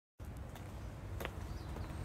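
Footsteps clicking on pavement, with one sharp step about a second in and fainter ones around it, over a steady low rumble of wind and handling on the phone's microphone.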